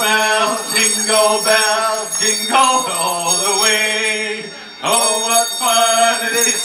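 Two men singing a Christmas song into microphones, holding long notes, over a steady accompaniment with a held low tone and high ringing, bell-like tones.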